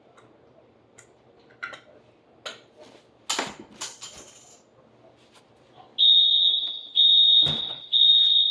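Fire alarm sounder set off by a lighter held to the detector: a loud, high-pitched electronic tone beeping in long pulses, three in a row starting about six seconds in. Scattered clicks and a couple of brief noisy bursts come before it, and a dull thump lands in the middle of the beeping.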